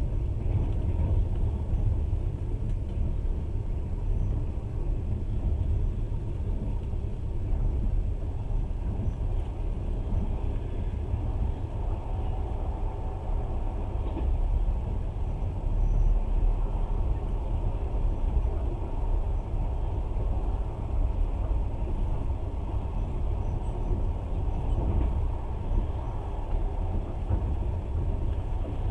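Steady low running noise of a passenger train in motion, heard from inside the carriage: wheels on rails and the carriage's rumble.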